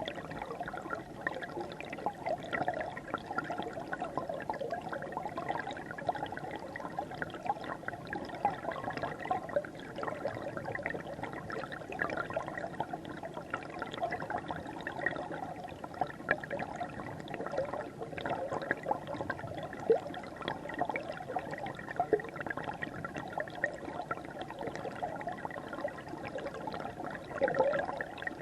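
River water flowing steadily, heard close up from within the stream, with constant bubbling and gurgling.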